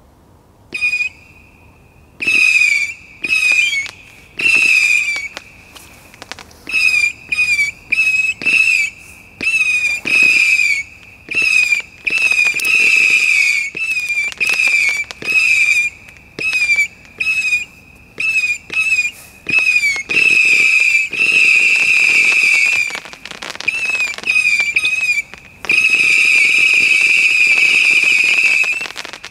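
Zeus Fireworks Megatronix cake firing rapid whistling tails: shrill whistles with a wavering pitch, fired in quick bursts one after another, with a few pops among them. Near the end the whistles overlap into a long, unbroken run.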